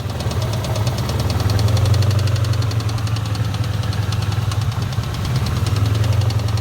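1997 Ford Mustang GT's 4.6-litre two-valve V8 running with a fast, even knock from the engine. The knock is loudest from the driver's-side head.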